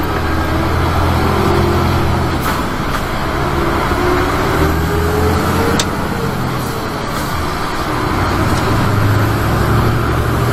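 Mercedes-Benz Axor 1840 truck's diesel engine running under way, heard from the cab. Its pitch climbs as it pulls, drops back with a click about six seconds in at a gear change, then climbs again.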